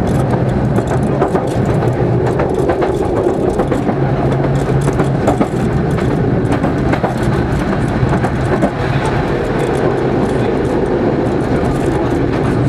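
Tram running along the track, heard from inside the car: a steady rumble of wheels on rails and traction motors, with frequent clicks and rattles.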